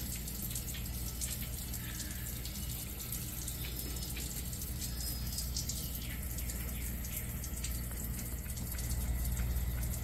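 Handheld shower head spraying a steady stream of water onto a shower base beside the drain, a continuous hiss and splatter, over a steady low rumble. This is the first water test of a newly plumbed shower.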